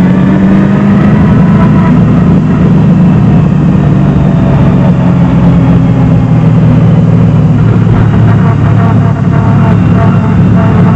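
Chevrolet 327 small-block V8 in a Datsun 240Z running on track, heard loud from inside the cabin, its note holding fairly steady with small rises and falls in pitch.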